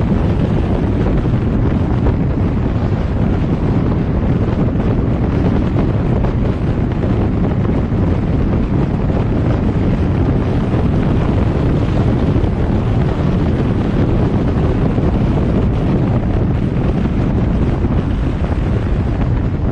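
Steady wind rush on the microphone over the low rumble of a car driving along a road, with no clear engine note.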